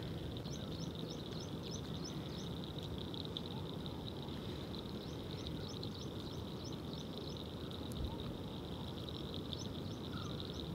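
Natural outdoor ambience of calling animals: a steady high-pitched drone, with runs of short rising high chirps at about four a second that come three times, over a faint low background hiss.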